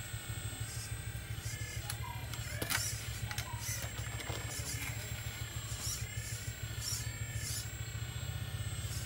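Radio-controlled model excavator working its long arm and bucket: a steady low motor hum with a whine that rises and falls in pitch as the arm moves, and a short clack about two and a half seconds in.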